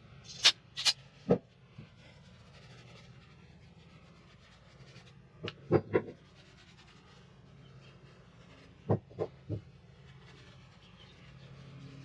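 Small hard metal parts being handled on a workbench: three groups of quick clicks and taps, about three in each, with light rubbing between them.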